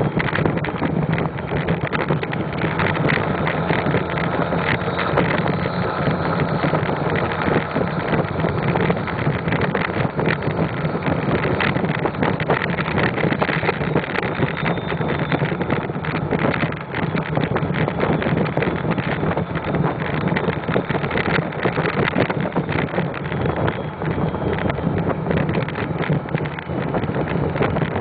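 Ford 6.0L Power Stroke V8 turbodiesel running steadily under way, heard through its bed-mounted vertical exhaust stack, with wind rushing over the microphone.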